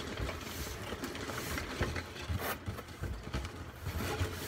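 Cardboard boxes being handled: the set's inner boxes shifting and scraping inside the big outer carton as it is tipped, with a few brief knocks and rustles.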